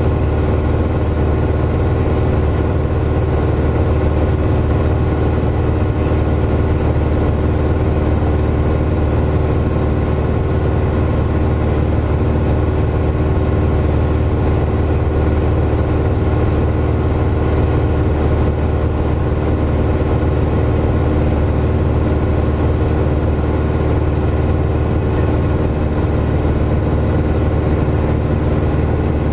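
Piper PA-28's piston engine and propeller droning steadily in flight, heard from inside the cockpit, with an even hum and no change in pitch.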